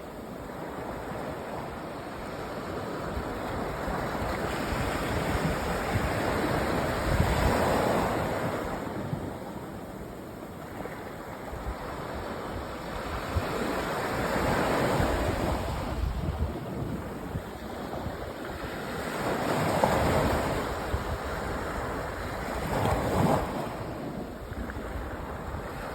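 Sea waves breaking and washing up a sandy beach: a continuous rush that swells and eases as each wave comes in, peaking every several seconds.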